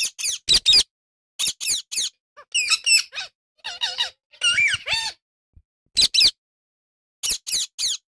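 Indian ringneck parakeets calling: shrill, short calls in quick runs of two to four, with a stretch of rapid, warbling chatter in the middle.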